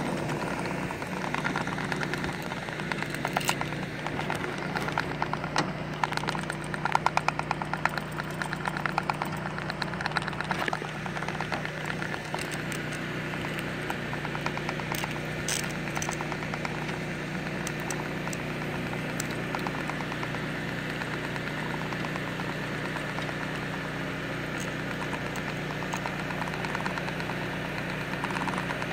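Lift engine running steadily while the aerial work platform basket moves, with a rapid rattling over roughly the first ten seconds.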